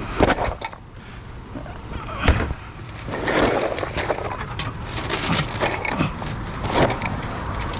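Knocks, clatter and rustling as pieces of scrap are handled and picked through, with a sharp knock just after the start and another a little after two seconds.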